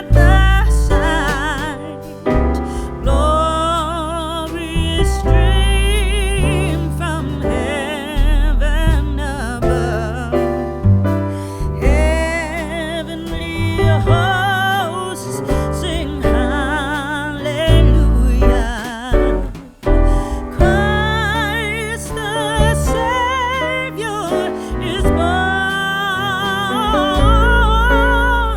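Background music: a song with a voice holding long notes with vibrato over keyboard and a strong bass line.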